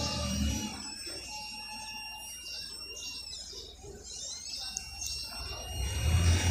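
Satellite finder meter's buzzer giving a thin, high, steady tone that wavers slightly in pitch while the dish is swept for signal.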